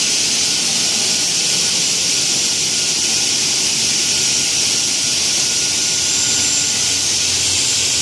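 CNC aluminum cutting saw running: a loud, steady hiss with a faint thin high whine, unchanging throughout.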